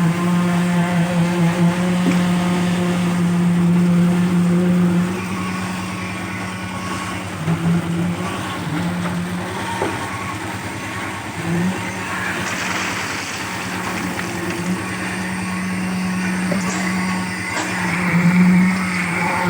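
Engine running steadily under load with a low, even hum that dips and changes pitch slightly several times, and a few short knocks and clatters over it, typical of a site machine such as a concrete mixer during concrete pouring.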